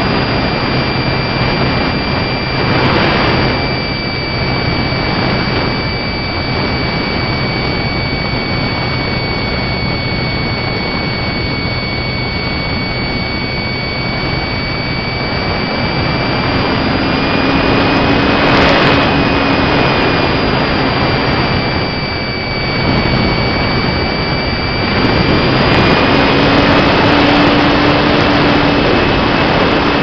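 Motor glider in flight, heard through a camera mounted on the airframe: heavy rushing airflow over a steady high whine from the motor and propeller. A lower hum joins around the middle and again near the end.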